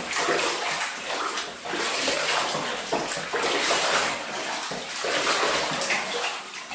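Bathwater being swished around by hand in a bathtub, sloshing in repeated surges.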